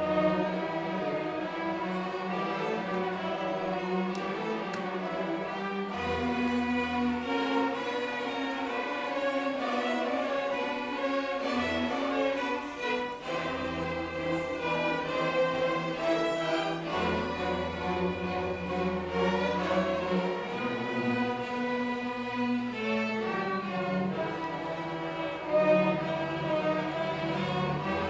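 A youth string orchestra of violins and cellos playing a classical piece, with the cellos holding low bass notes under the violins.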